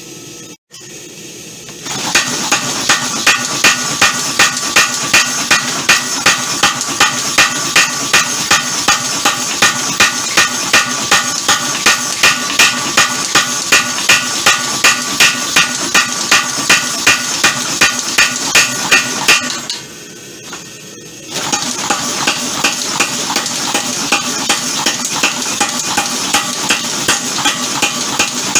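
Homemade power hammer striking hot leaf spring steel in a steady rhythm, about two to three blows a second, with a metallic ring. Near the end of its first long run the hammer stops for under two seconds, then starts again with lighter, less even blows.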